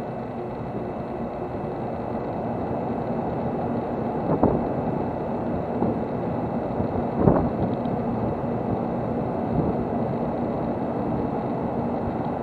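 Steady hum and rumble of a stationary train's onboard equipment running, growing slightly louder, with a few short knocks or clanks; the loudest comes about seven seconds in.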